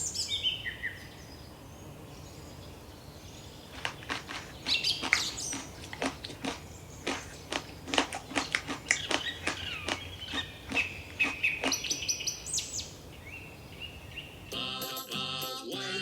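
Birds chirping and calling in quick, repeated short notes, busiest through the middle. Near the end, children's music with jingle bells comes in.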